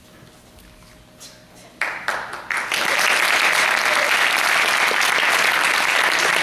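Audience applause: after a quiet start, a few separate claps come about two seconds in, then the whole house breaks into steady, dense clapping.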